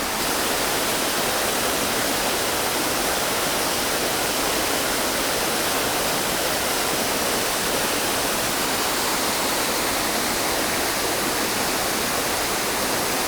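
Steady rush of water from a small seasonal waterfall that is flowing low after a few dry days.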